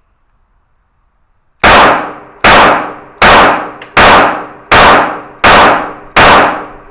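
Rapid string of seven .22 LR gunshots, about one every 0.8 seconds, starting about a second and a half in. Each is a loud crack followed by a decaying echo.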